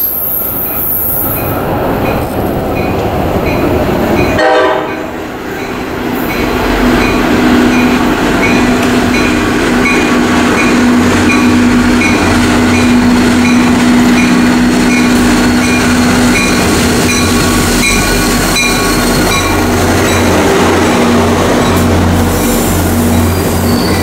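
NJ Transit commuter train approaching and pulling into the station platform, its rumble growing louder from about six seconds in as it rolls alongside.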